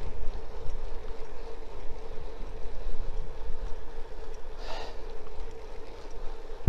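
Wind rumbling on the microphone of a camera riding along on a moving bicycle, over the steady rolling noise of the ride on an asphalt road. A brief hiss comes about five seconds in.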